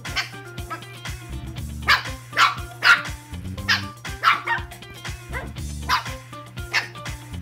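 Two-month-old Shih Tzu puppies yapping and barking sharply while they play-fight, about eight short yaps, most of them from about two seconds in. Background music plays throughout.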